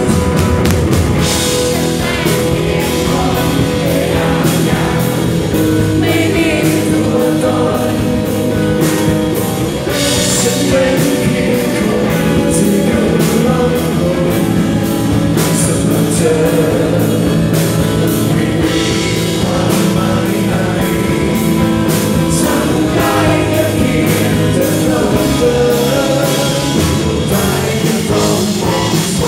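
A live rock band playing at full volume through a PA, with drums, bass and guitars keeping a steady beat. A lead singer sings into a microphone over the band.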